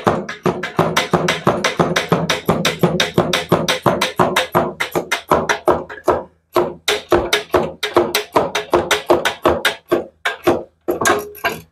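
Socket ratchet clicking rapidly and evenly, about four or five clicks a second, with two short pauses, as the 12 mm bolts holding the exhaust are worked loose.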